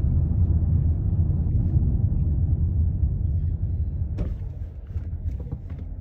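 Car driving slowly: a steady low rumble of engine and tyres heard from inside the cabin, with a few faint ticks about four seconds in.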